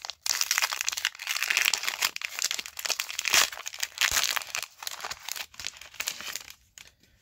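Foil booster-pack wrapper crinkling and tearing as it is pulled open by hand. The crackling dies away near the end.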